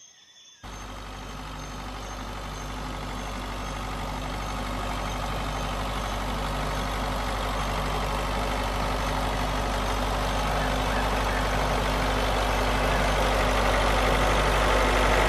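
A vehicle engine running steadily with a low, even hum. It starts abruptly about half a second in and grows slowly louder.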